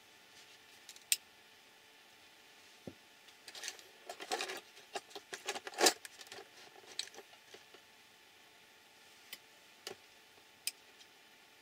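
Hand tools and small parts clicking and clattering as a hand rummages in a compartmented tool box. A single sharp click comes about a second in, a busy run of clinks follows in the middle, and a few lone ticks come near the end.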